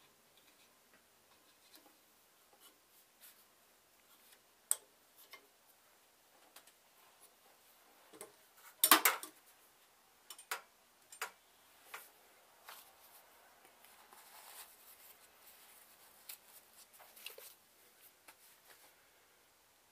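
Scattered clicks and metal knocks from hand adjustment of a belt grinder's bevel tool rest, an adjustable wrench turning its bolts; the loudest knocks come in a quick cluster about nine seconds in.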